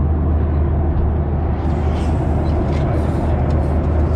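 Steady airliner cabin noise in flight: a deep, even drone of engines and airflow.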